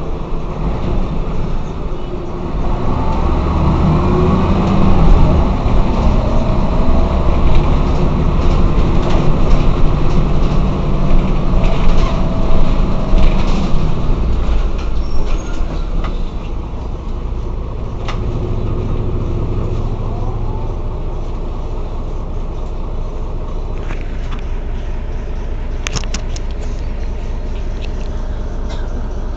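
Mercedes-Benz O 405 N city bus engine pulling under load for roughly the first fifteen seconds, with rising whine as it accelerates, then settling to a lower, steady running sound for the rest. A few sharp clicks come near the end.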